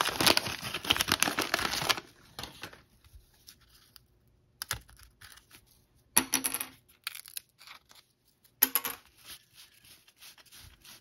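Wax-paper wrapper of a 1986 Topps baseball card pack being torn open and crinkled for about the first two seconds. A few short rustles and clicks follow as the stack of cards is handled.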